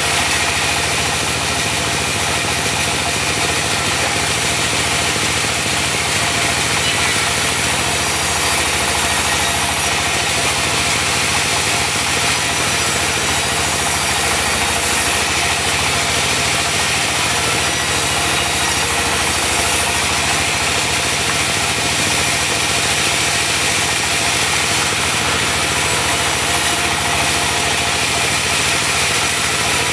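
Diesel engine of a mobile band sawmill running steadily, with no change in pitch or load throughout.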